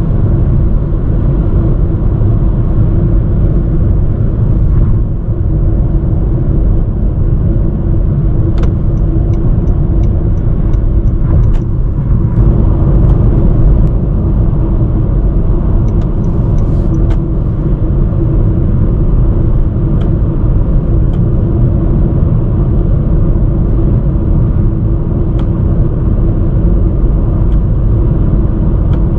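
Honda Vezel driving on the highway: steady road and tyre noise with a constant low hum. A short run of faint, evenly spaced clicks comes about a third of the way in.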